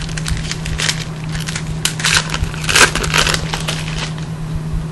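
Trading cards being handled by hand: a run of crisp rustles and clicks as cards slide and flick against each other, busiest about two to three and a half seconds in, over a steady low electrical hum.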